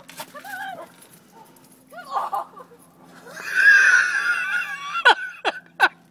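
A woman's long, high scream, starting about three seconds in as she goes down in deep snow with dogs piling onto her, then a quick run of short falling squeals, about two or three a second.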